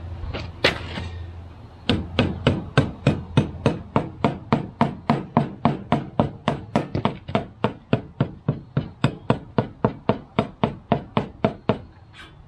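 A rapid, evenly spaced series of sharp knocks, about four a second, starting about two seconds in and stopping near the end.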